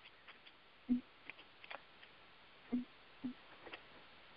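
Quiet conference-call phone line: faint hiss with scattered soft clicks and three short low thumps, while the line waits for a caller to answer.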